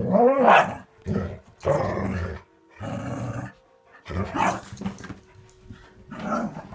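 Dogs growling in rough play: a run of about six short growls, each under a second, with the odd bark-like yap.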